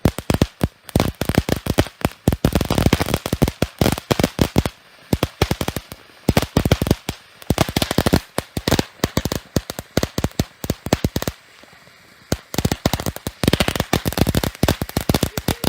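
Consumer fireworks going off in a rapid, irregular string of loud cracks, several a second, with a break of about a second some eleven seconds in before a last burst of cracks.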